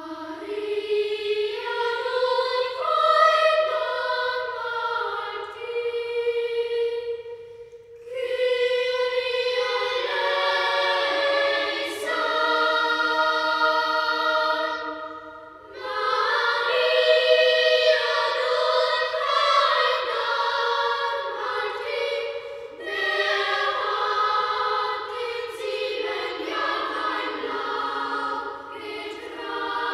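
A choir singing in long sustained phrases, breaking off briefly three times between phrases.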